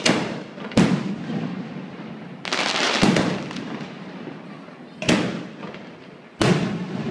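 Fireworks bursting: five sharp bangs a second or two apart, each trailing off in an echoing rumble, with a hissing stretch about two and a half seconds in.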